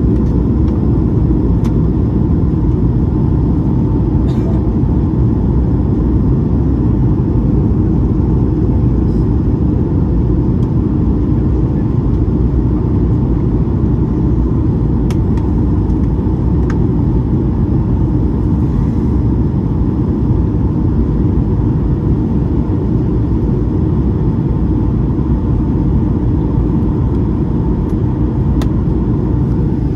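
Cabin noise inside an Airbus A220-300 in flight, heard from a window seat by the wing: a steady rush of airflow and engine noise from its Pratt & Whitney PW1500G geared turbofans, with a low rumble and a steady hum. There are a few faint clicks.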